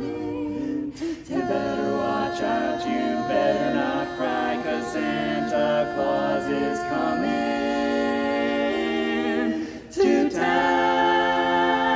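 Mixed-voice barbershop quartet singing a cappella in close four-part harmony, holding long chords at the song's finish. There is a brief break about ten seconds in, then a final sustained chord.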